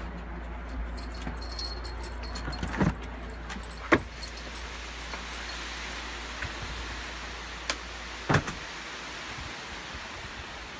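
Light metallic jingling of small metal pieces for the first couple of seconds, then a few sharp knocks spread through the rest, over a steady low rumble.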